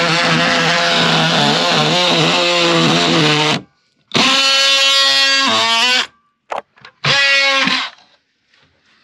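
Cordless oscillating multi-tool buzzing as it cuts into an old oak boat frame, run in bursts: a long one of about three and a half seconds, a second of about two seconds whose pitch sags as the blade bites, two quick trigger taps, then a short final burst.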